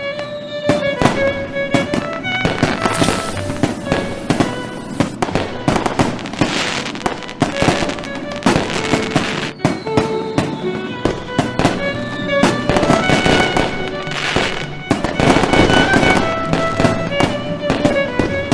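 Fireworks going off in rapid, irregular bangs and crackles, with music playing underneath: a melody of held notes.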